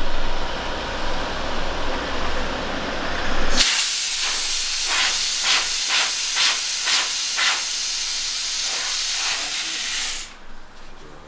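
Compressed air rushing into a car tyre through an air chuck on the valve stem, with a low rumble underneath. About three and a half seconds in, it gives way to a louder, high hiss of air at the valve stem, broken by a quick run of pulses. The hiss cuts off suddenly near the end as the valve is closed with a small tool.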